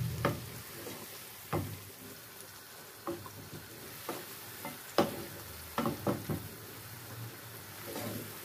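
Ground garlic and green chillies frying in desi ghee with a light sizzle, stirred with a wooden spoon in a nonstick frying pan; the spoon knocks against the pan a dozen or so times at uneven intervals.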